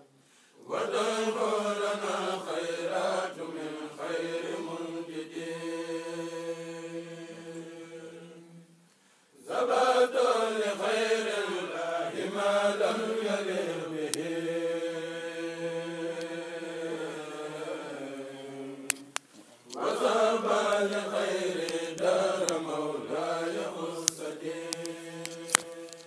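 A group of voices chanting a xassida, a Senegalese Sufi devotional poem, in long drawn-out sung phrases with short breath pauses about nine and nineteen seconds in. A few sharp clicks near the end.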